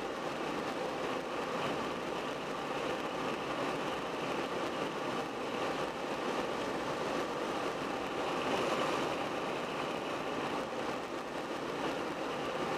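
A car driving at road speed, heard from the car: steady tyre and road noise with engine running beneath.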